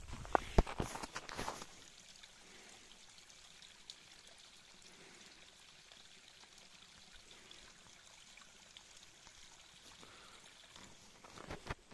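Footsteps on snow for the first second or two, then the steady faint trickle of a small stream running down a snowy gully, until footsteps start again near the end.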